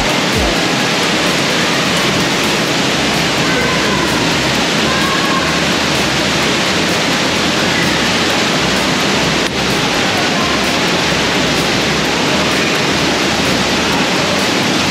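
Waterfall roaring: a loud, steady rush of falling water that does not let up.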